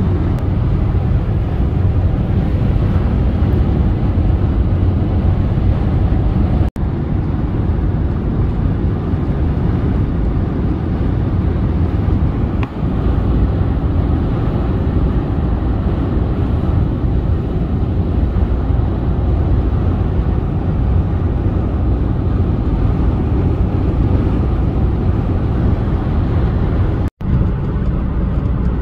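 Steady road and engine noise of a moving car heard from inside the cabin: a low, even rumble. It cuts out for an instant twice, about seven seconds in and near the end.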